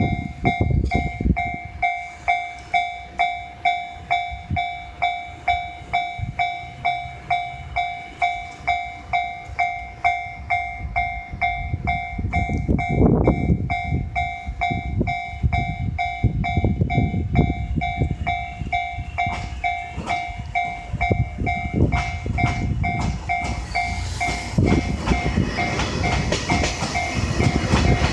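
Japanese level-crossing warning bell ringing in a steady, even pulse about twice a second. From about halfway a train rumbles past over the crossing with wheel clatter, growing louder toward the end.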